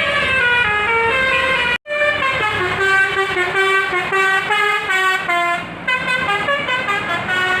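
Bus 'telolet' multi-tone air horn playing a quick tune of short stepping notes. The sound breaks off for a moment about two seconds in, then another run of notes follows.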